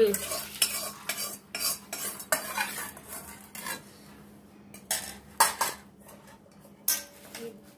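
Stainless-steel ladle clinking and scraping against steel bowls while stirring mustard oil mixed with asafoetida, in a string of irregular metallic knocks.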